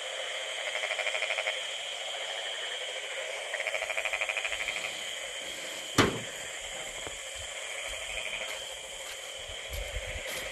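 Frogs calling in the rice paddy: two bouts of rapid pulsed croaking, about ten pulses a second, one near the start and another around four seconds in, over a steady high-pitched hum. A single sharp click comes about six seconds in.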